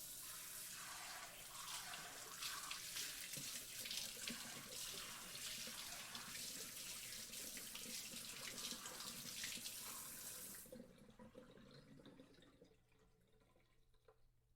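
Water sprinkler spraying: a steady hiss of spray that starts abruptly, loses its hiss about eleven seconds in, and leaves a low splashing that fades out over the next couple of seconds.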